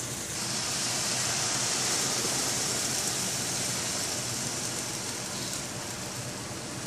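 Blended tomato and chile salsa being poured into a hot skillet of fried tortilla pieces and eggs, sizzling in a steady, loud hiss.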